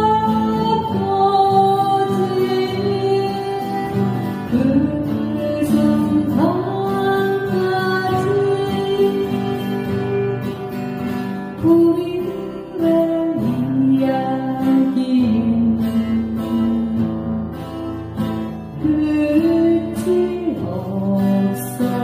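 A woman singing to her own acoustic guitar accompaniment, her melody moving between long held notes over the guitar's chords.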